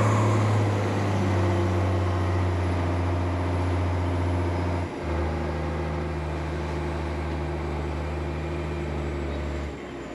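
Boat's engine running with a steady low drone that drops to a lower pitch about halfway through as the engine slows, then falls away near the end.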